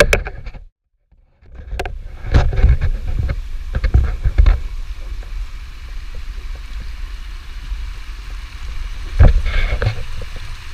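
GoPro camera's waterproof housing rattling and knocking as it is carried, with a low handling rumble and a few sharper knocks, over the steady rush of a small creek running down rock ledges. The sound cuts out briefly about a second in.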